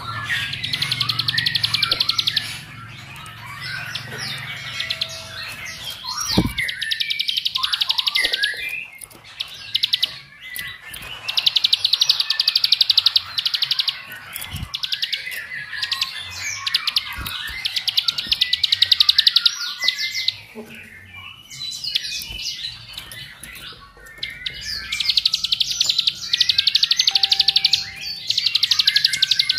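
Plain prinia (ciblek sawah) singing: five long, fast, buzzing trills of two to three seconds each, with quick chirps between them. This is the rapid 'ngebren' trilling that bird keepers prize.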